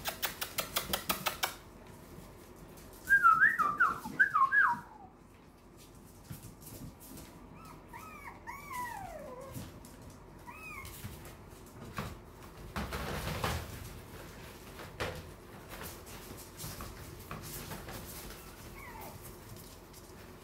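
Yorkshire terrier puppies yelping and whining: a cluster of loud, high squeals about three seconds in, then a few softer falling whines. There is a rapid run of clicks at the start and a brief burst of rustling later.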